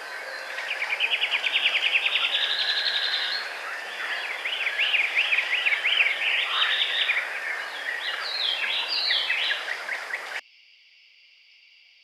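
Songbird singing: a fast, even trill lasting about three seconds, then a jumbled series of quick up-and-down notes, over a steady background hiss. About ten seconds in the sound cuts to a much quieter, steady high-pitched drone.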